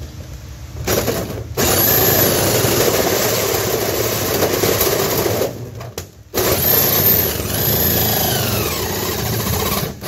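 Corded Hitachi drill running a hole saw through the trailer's outer wall, in two long runs with a short stop a little past halfway. The motor's pitch rises and falls as the saw bites.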